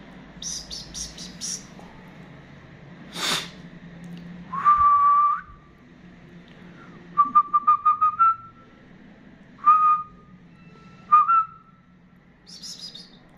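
Clear whistled notes at one pitch: a long held note, a quick run of short notes, then single short notes that turn slightly upward. Short high chirps come at the start and near the end, and there is one sharp noise about three seconds in.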